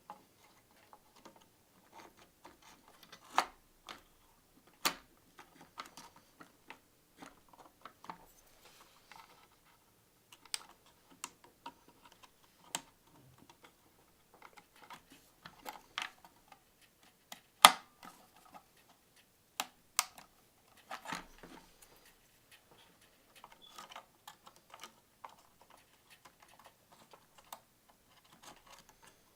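Scattered light plastic clicks and taps of hands handling RAM modules at the motherboard's memory slots, with a few sharper clicks; the loudest comes about two-thirds of the way through.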